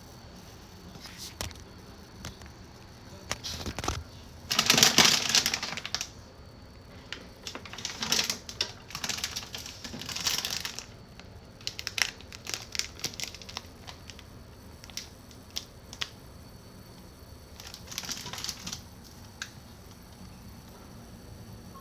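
Intermittent rustling and crinkling handling noise close to the microphone, with scattered sharp clicks; the longest burst is about five seconds in.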